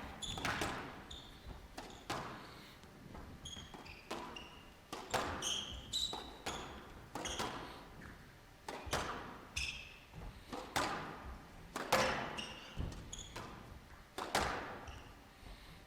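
Squash rally: a steady back-and-forth of sharp ball strikes off rackets and walls, about one a second, each ringing briefly in the hall, with short high squeaks in between.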